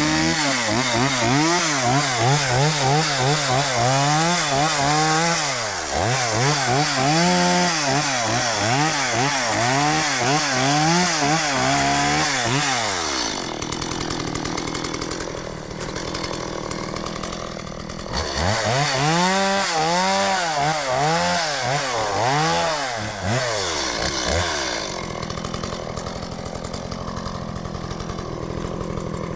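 Two-stroke gas chainsaw cutting wood, its engine pitch wavering quickly up and down as the chain bites. The revs drop away about 13 seconds in, pick up for another cut from about 18 to 24 seconds, then ease off again.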